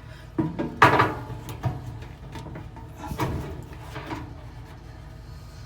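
Knocks and clatter of parts being handled as a new drum support roller is fitted onto its shaft inside a dryer, with several sharp strokes near the start and a couple more later on.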